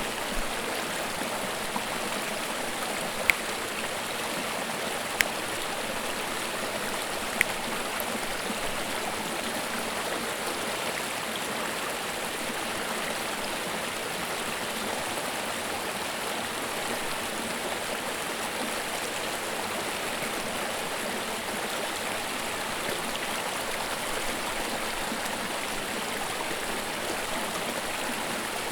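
Small creek babbling and rushing steadily over rocks, with three short sharp clicks in the first several seconds.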